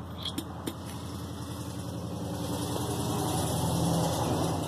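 A motor vehicle's engine running with a low, steady hum that grows gradually louder over the few seconds. Two small sharp clicks come in the first second.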